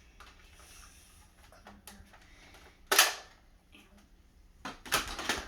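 Nerf Fortnite blaster firing a dart: one sharp spring-powered shot about three seconds in, then a quick run of louder plastic clicks and clacks near the end, with faint handling ticks before.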